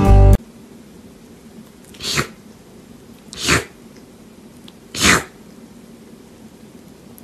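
A kitten sneezing three times, about a second and a half apart, each a short sharp burst.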